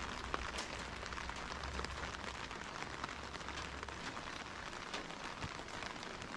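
Steady rain, with many small drop ticks over an even hiss. A low rumble under it drops away about four seconds in.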